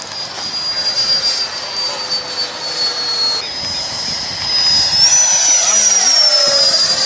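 Radio-controlled scale model jet of an F-4 Phantom flying past, its engine giving a high, steady whine. About five seconds in it grows louder, the pitch jumps up and then slides down as it passes close.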